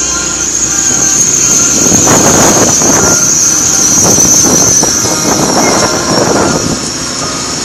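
Kawasaki KLX300SM motorcycle under way: wind rushes and buffets over the microphone, and the engine runs steadily beneath it.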